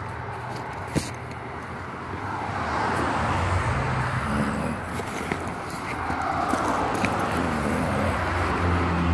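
Road traffic: a steady low engine hum under a rushing sound of passing vehicles that swells about three seconds in and again near the end. A single sharp click about a second in.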